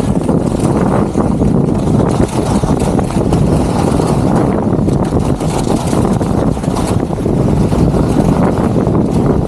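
Steady, loud wind rush buffeting an action camera's microphone as a skier runs fast down a groomed slope, mixed with the skis running over packed snow.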